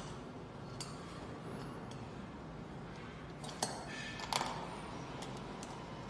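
Light metallic clinks and taps as bolts are fitted and turned into the steel bracket strips on the back of a weight bench's padded backrest. The clinks are scattered, with the two sharpest coming a little past the middle.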